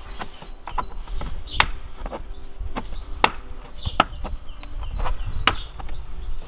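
A string of irregular sharp plastic clicks and knocks: a plastic trim removal tool levering at a clipped-in dashboard trim panel, the panel and its retaining clips clacking as it is worked loose.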